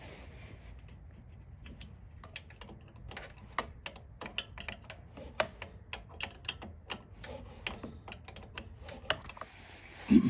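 Irregular light metallic clicks and taps of hand tools as two bolts are put back in at the bottom of a snowblower's electric starter, with one louder thump near the end.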